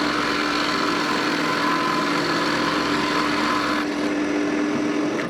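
Drill press running with a steady hum as a ball-making bead drill bit cuts into wood; the cutting noise eases about four seconds in and everything stops near the end.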